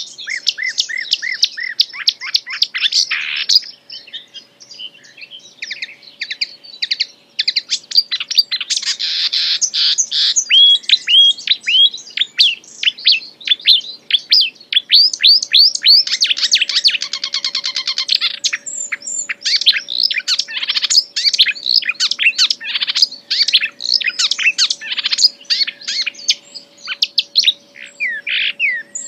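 A wild songbird singing non-stop in a fast, varied stream of chirps, sweeps and trills, full of mimicked phrases, with short lulls about four and seven seconds in.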